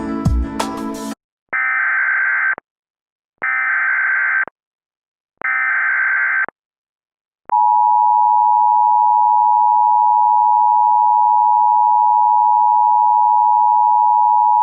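Music cuts off about a second in. Then come three short bursts of Emergency Alert System SAME header data, a warbling digital screech each about a second long with gaps between. About halfway through the long, steady two-tone EAS attention signal starts and holds to the end.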